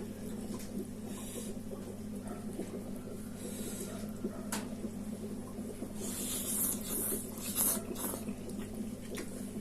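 A person eating spicy noodles: slurping and chewing with sniffs and hissing breaths, loudest about six to eight seconds in, with a sharp click about halfway. A steady low hum runs underneath.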